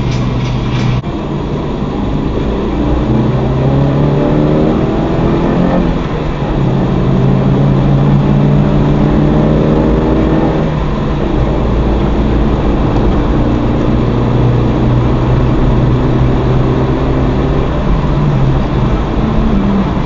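Suzuki Carry minivan engine accelerating hard. Its pitch rises, drops at a gear change about six seconds in, climbs again, and then settles to a steady cruise a few seconds later. It is heard from inside the cab over a constant road rumble.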